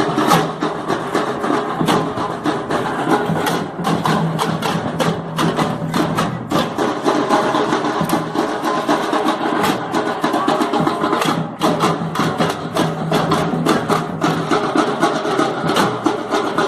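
Percussion group drumming together, a dense, fast and steady rhythm of sharp drum strikes.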